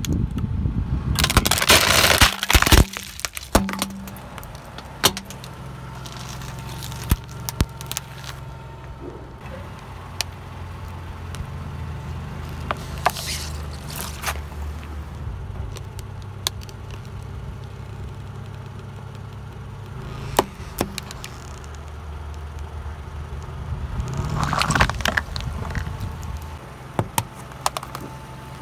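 A car tyre slowly rolling over and crushing objects: loud cracking and breaking of hard plastic about two seconds in, then scattered snaps, with the car's engine idling low underneath. Further crunching comes near the middle as a plastic bottle goes under the tyre, and again near the end as an aluminium drink can is crushed among water beads.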